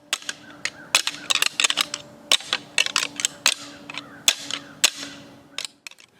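A quick, irregular series of sharp clacks and knocks, hard objects striking together, more than a dozen in about six seconds.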